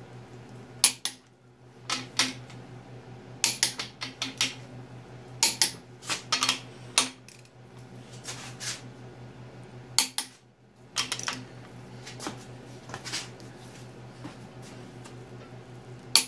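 Torque wrench ratcheting and clicking on the ARP main-cap stud nuts of a small-block Chevy 400, tightening them to 80 foot-pounds: scattered sharp metallic clicks and clinks, some in quick pairs, over a steady low hum.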